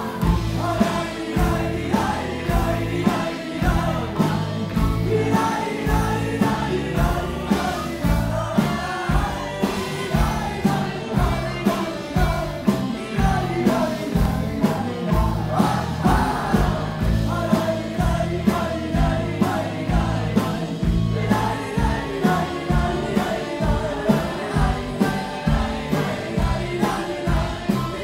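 Live rock band playing with voices singing over a steady beat of about two drum hits a second.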